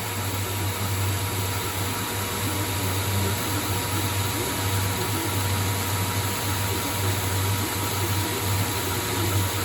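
ProtoTrak CNC lathe running through a rough-turning pass on a 4140 steel shaft: a steady low hum with an even hiss over it.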